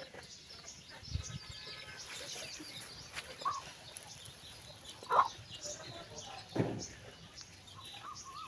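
Domestic chicks peeping steadily in high chirps, with a few louder, lower calls from the mother hen cut across them, the loudest about five seconds in.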